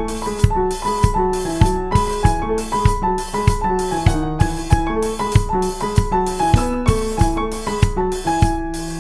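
Background music: a piano melody over a steady drum beat.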